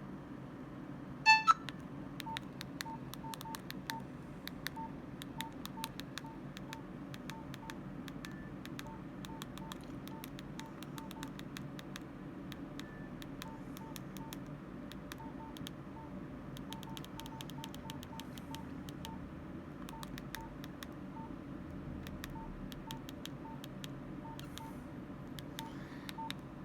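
Nokia 105 (2013) mobile phone keypad: keys pressed one after another, each giving a short beep at the same pitch with a light click, irregularly, about one or two a second. A louder, brief tone sounds about a second in.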